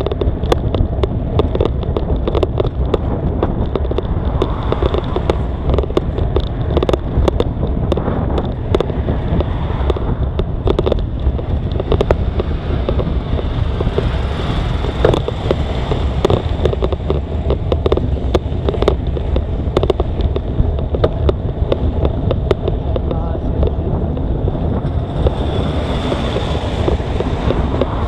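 Wind buffeting the microphone of a cyclist riding uphill on a rocky road, with frequent short rattles and knocks from the bike over the rough surface and the rider's heavy breathing.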